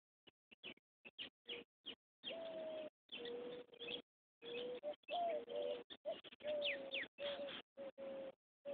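Birds calling: low, steady cooing notes with a few short high chirps, cutting in and out every second or so.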